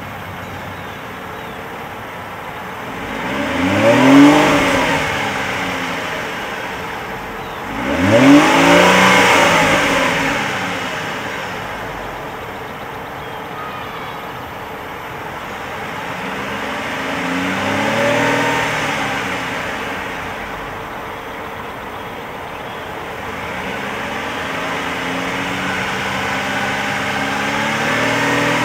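2008 Lincoln MKZ's 3.5-litre V6 revved from idle at the exhaust, with the car standing still. There are two quick blips about 4 and 8 seconds in, the second the loudest, then two slower, milder revs that rise and fall, settling back to idle between them.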